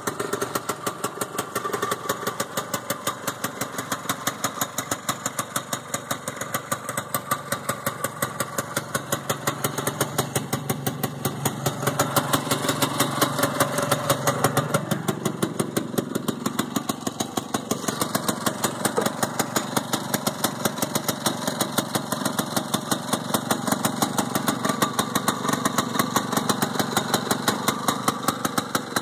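The Hirth 246 cc two-stroke engine of a 1967 Boatel Ski-Bird 11 snowmobile idling with a rapid, even beat. It gets louder for a few seconds midway.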